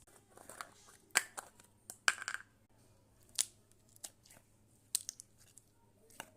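Slime being handled, giving irregular sharp pops and crackles, with a quick cluster of them about two seconds in.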